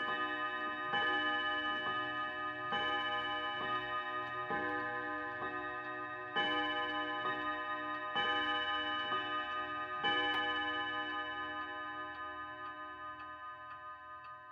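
1940s Kienzle box regulator clock striking the hour on its three-rod bim-bam gong: six strikes about two seconds apart, each a chord of ringing rod tones, with the last about ten seconds in and its ringing dying away. The pendulum movement ticks steadily underneath.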